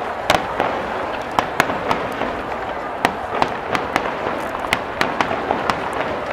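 Aerial firework shells bursting overhead: an irregular run of sharp bangs and cracks, two or three a second, over a steady rumbling haze.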